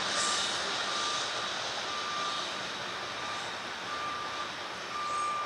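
An electronic beep repeating about once a second, each beep short and steady in pitch, getting louder near the end, over a steady rushing noise.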